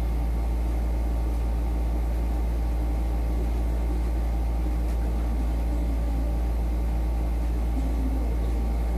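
A steady low hum with an even hiss of background noise, unchanging throughout and with no distinct events.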